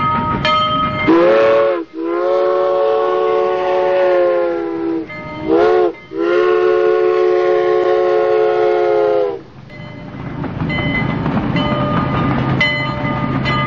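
Steam locomotive's chime whistle, several notes sounding together as a chord, blown four times: short, long, short, long. Then the steady rumble and hiss of the train running.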